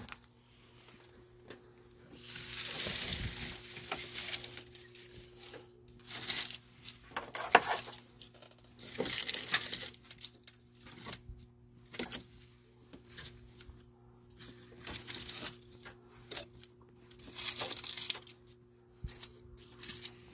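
Dry leaves crunching and crinkling as they are grabbed by hand and pulled out of a car's engine bay, in irregular bursts a second or two long.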